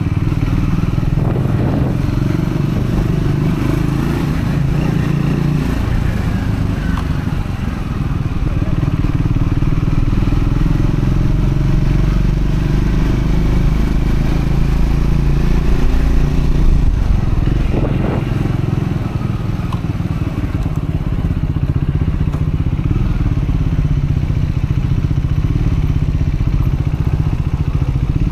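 Triumph Scrambler 400X's 398 cc single-cylinder engine running under way, at the moderate revs of a break-in ride. It pulls harder about a third of the way in and eases off again later.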